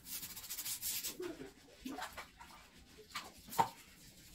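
Rustling, then a few light knocks and taps, the loudest about three and a half seconds in.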